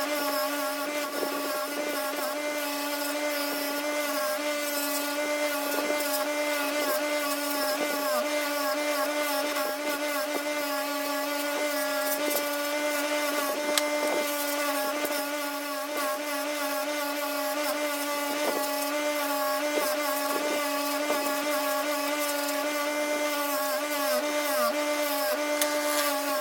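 Small electric power tool's motor running at a steady high speed, a constant hum with scattered light clicks and scrapes as the work is held against it.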